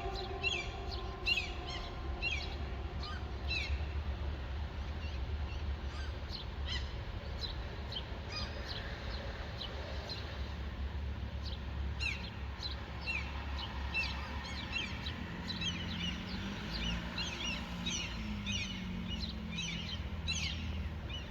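Small birds chirping with many short, quick down-slurred calls over a steady low background rumble. The city's air-raid siren has fallen silent, and a faint low drone wavers in during the second half.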